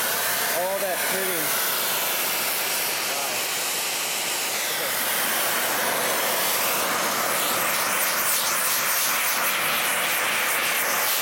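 Oxy-acetylene cutting torch running with a steady hiss as it heats and then cuts the race of a seized ball bearing on an electric motor shaft. The hiss turns rougher about halfway through.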